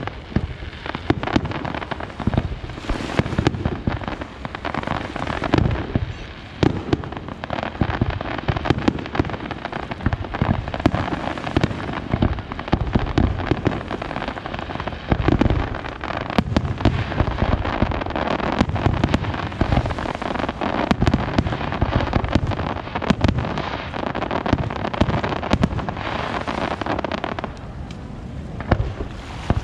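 Aerial fireworks display: shells bursting in quick, overlapping bangs over a steady crackling hiss, thinning out near the end.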